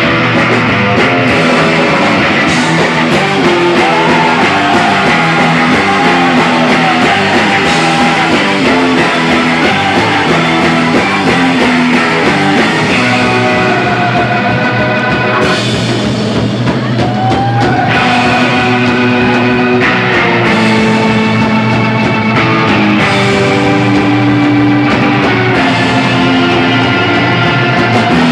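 Surf-rock band playing live: electric guitar lead over bass, drums and an organ, an instrumental passage. About halfway through, the cymbals and high end drop away for a couple of seconds before the full band comes back in.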